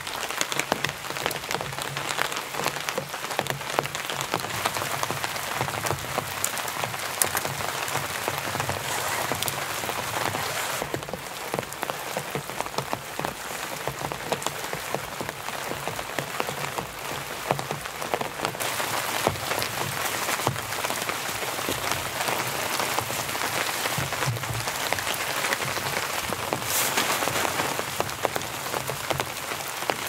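Steady rain pattering on a tent's fabric fly, a dense mass of drops with a few louder single drops standing out, one of them near the end.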